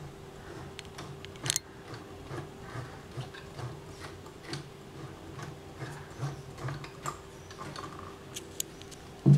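Singer electric sewing machine stitching fabric: a steady hum with soft, repeated mechanical ticking from the needle mechanism. A brief low thump just before the end is the loudest sound.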